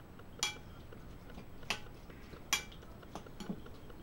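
Spoon clinking against a glass salad bowl while stirring a salad: three sharp clinks with a short ring, about a second apart, then a few fainter taps near the end.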